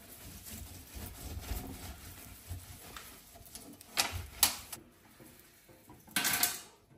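Sponge cloth rubbing over a stainless-steel sink drainboard, with two sharp knocks about four seconds in, then a short burst of running tap water near the end.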